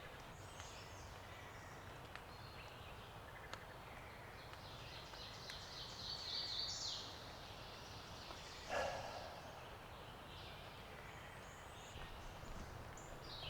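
Songbirds singing phrase after phrase, with one brief, louder sound about nine seconds in.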